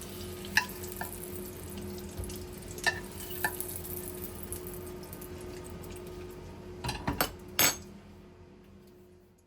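Kitchen work: scattered clinks and taps of utensils and dishes over a steady low hum and background hiss, with a quick cluster of louder knocks near the end before it fades out.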